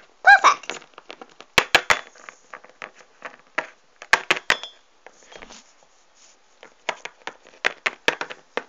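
Small plastic Littlest Pet Shop figures knocking and tapping on a tabletop as they are handled and moved, in irregular scattered clicks. A short high voice sound comes about a third of a second in.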